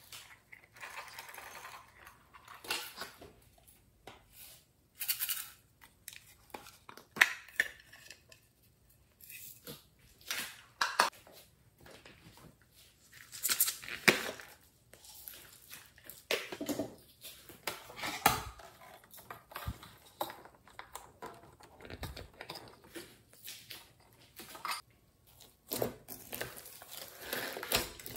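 Hands handling small toys and slime over a glass dish: irregular clicks, taps and short rustles, with a denser crackling stretch near the end as the sticky slime is pulled apart.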